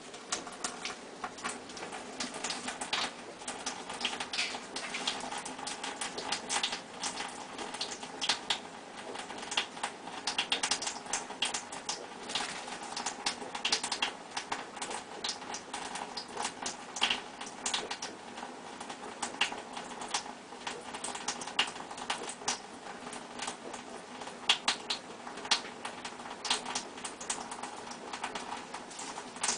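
A cat pawing at soapy water in a kitchen sink: a stream of irregular small wet pats, splashes and clicks, several a second, over a steady trickle of water from the tap.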